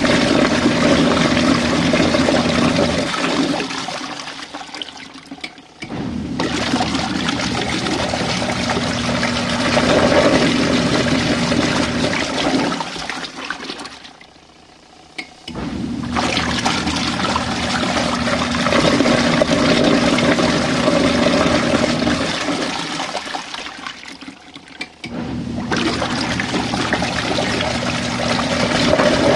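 Compact RV washing machine churning water during a rinse, with a steady motor hum under the sloshing. The churning dies away and pauses, then starts again abruptly, three times, in a regular on–off cycle.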